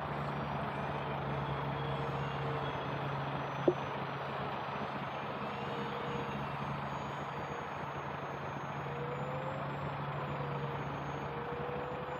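Distant whine of an E-Flite RV-7 RC airplane's brushless electric motor and propeller in flight, its pitch wavering slowly over a steady hiss. A single sharp click about four seconds in.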